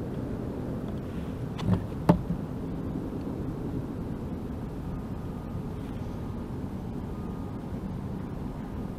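Steady low rumble of outdoor background noise, broken by two sharp knocks close together about two seconds in.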